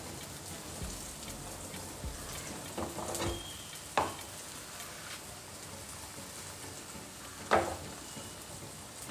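Omelette batter of egg, tomato and onion frying in hot coconut oil in a kadai, with a steady sizzle and a few short sharp knocks about three, four and seven and a half seconds in.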